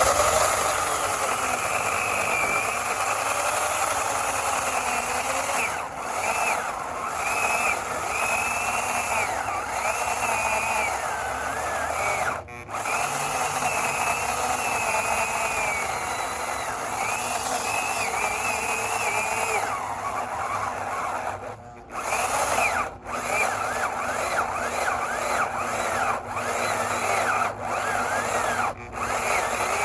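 Hyper Tough 9-amp 14-inch corded electric chainsaw running steadily, its whine wavering in pitch as it works. It stops briefly several times and starts again.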